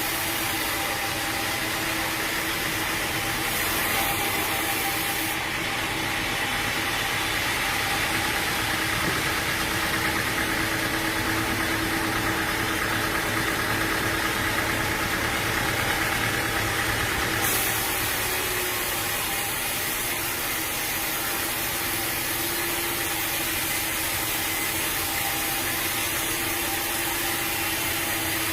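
Sawmill machinery running steadily, a continuous engine-like drone with a hiss above it that fades from about five seconds in and comes back near seventeen seconds.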